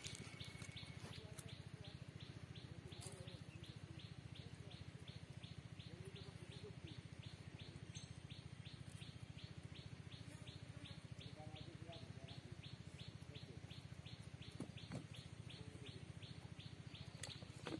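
A bird calling one short, high note over and over at an even pace, about three to four times a second, over a faint steady low hum.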